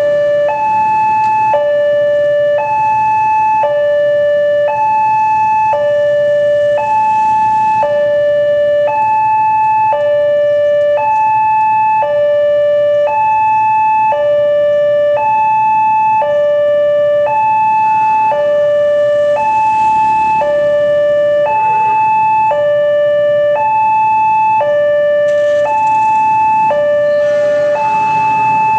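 Indonesian railway level-crossing alarm sounding its electronic two-tone warning: a low tone and a high tone alternating evenly, about one of each per second, steady and loud. The alarm signals that a train is approaching and the crossing barrier is down or closing.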